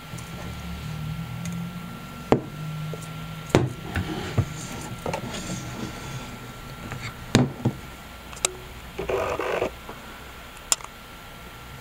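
Handling noise of a Canon TX film SLR with a long zoom lens: a few sharp clicks and knocks spread out, as the camera and lens are turned over and set on a wooden table, with a brief rustle near the end.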